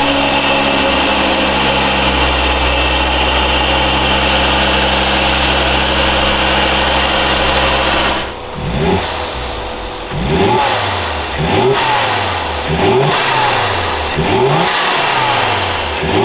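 2006 Volvo S60R's turbocharged inline-five engine, fitted with an open cone-filter air intake, idling steadily. About eight seconds in it is revved in a series of about six quick blips, each rising and falling in pitch.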